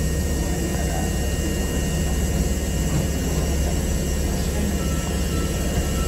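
Steady low rumble and hiss of electric trains at a covered station platform, as a Hankyu 9000-series train pulls in beside a standing train in heavy rain. A faint high whine comes in near the end.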